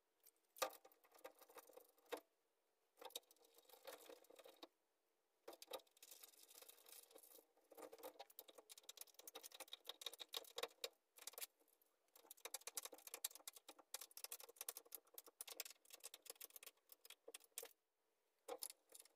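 Faint, scattered clicks and light metal rattles of bolts and hardware being handled and screwed in as caster wheels are fitted to a steel rolling tool cabinet.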